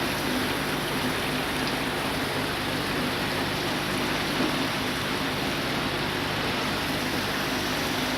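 Automatic heavy-vehicle wash spraying water: a steady hiss of water jets over a low, steady machine hum.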